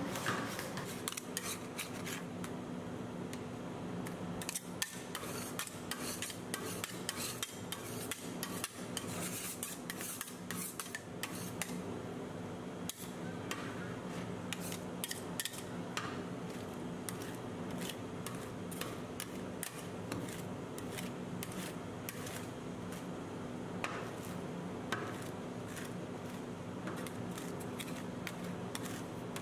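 Metal spatulas tapping, chopping and scraping on a steel ice cream roll cold plate, with quick taps dense in the first half and fewer later, over a steady low hum.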